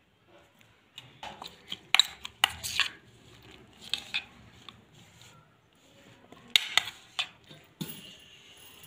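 Metal spoon clinking against a steel bowl while egg is stirred into chopped vegetables, in irregular clusters of sharp clinks with short pauses between.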